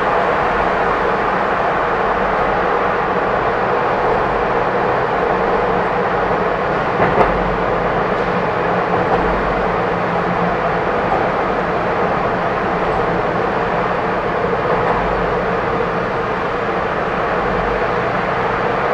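Steady tyre and road noise of a car driving through a road tunnel, with a low hum, and a brief knock about seven seconds in.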